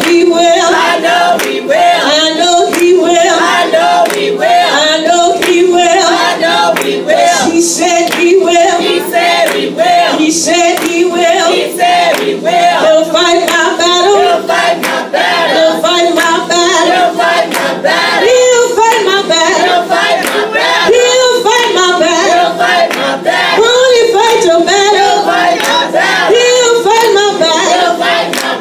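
Gospel praise singing: a lead singer on a microphone with a group of voices singing along, amplified through the church sound system. Sharp handclaps keep time throughout.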